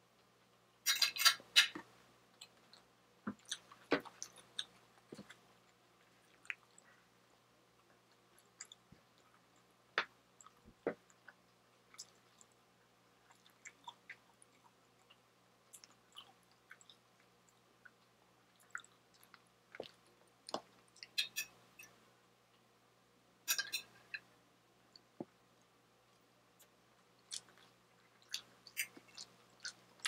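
Close-up chewing of a mouthful of rice and steelhead trout: soft wet mouth sounds and scattered small clicks, with a few louder crackly bursts, the loudest about a second in and two more about two-thirds of the way through.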